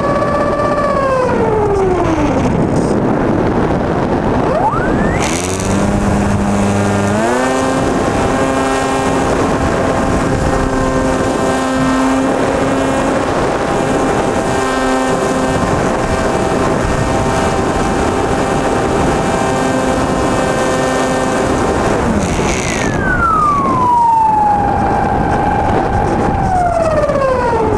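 Electric RC plane's brushless motor and propeller whining as the throttle changes: the pitch falls over the first few seconds, climbs sharply about five seconds in and holds a steady high whine at full throttle, then falls again in two steps near the end as the throttle is eased back.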